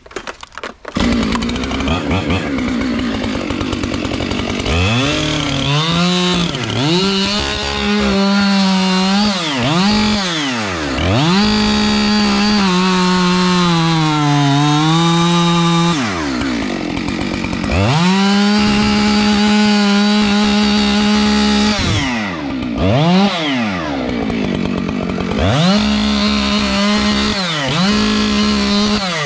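Two-stroke chainsaw cutting into a tree trunk to make the felling cut. It starts about a second in, and its pitch repeatedly sags as the chain bites into the wood and glides up and down as the throttle is let off and opened again.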